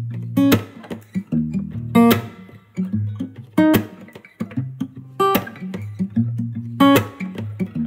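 Background music: guitar strumming over steady low notes, with a sharp accented strum about every second and a half.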